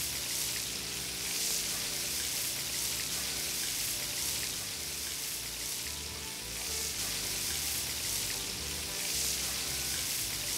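Flour-battered chicken fried steaks frying in hot grease in a large cast iron skillet, a steady sizzle, with background music underneath.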